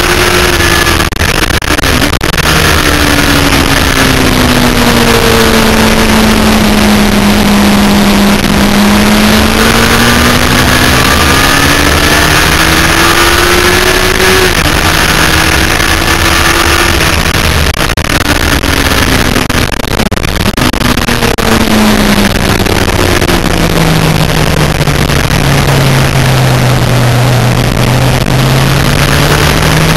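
Yamaha FZR1000's inline-four engine at racing speed, heard from an onboard camera with heavy wind rush over the microphone. The engine note sinks slowly and climbs again twice, falling off as the bike slows for a corner and rising as it drives out.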